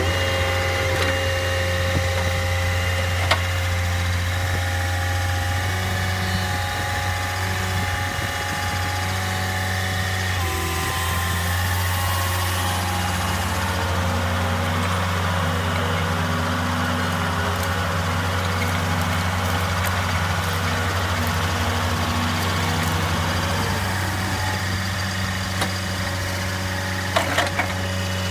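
Ransomes AR 250 ride-on rotary mower's engine running steadily: a deep, even hum with a fainter whine above it. There is a short knock a few seconds in and a few more near the end.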